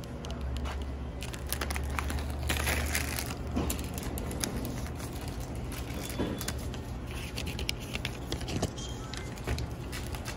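Rustling and scattered light clicks of items being handled at a shop counter, with a low hum during the first few seconds.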